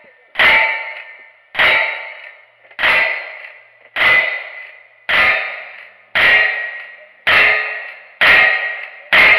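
Lever-action rifle fired nine times at an even pace, about one shot a second. Each shot is followed by a short ring of struck steel targets.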